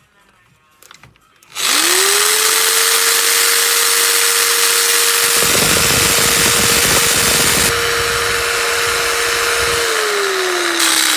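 Bosch 650 W jigsaw switched on about a second and a half in, spinning up and then running at its maximum speed setting with a steady whine, a rougher low rattle joining in the middle. Near the end it is switched off and the whine falls as the motor winds down.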